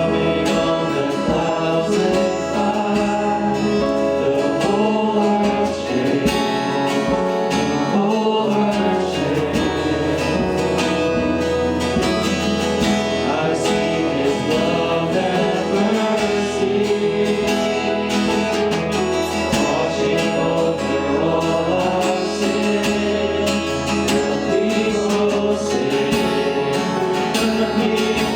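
Gospel worship music: guitar-backed singing by a group of voices.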